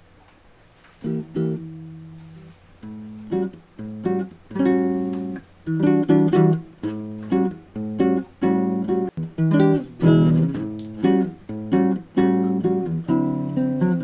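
Soundtrack music on acoustic guitar: plucked and strummed chords. It starts quietly about a second in and grows busier, the notes coming quicker and louder.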